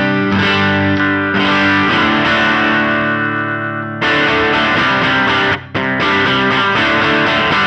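Overdriven electric guitar chords played through a NUX Ace of Tone dual overdrive pedal into a clean Jazz Chorus amp. The chords ring out, are restruck about four seconds in, and break off briefly near six seconds.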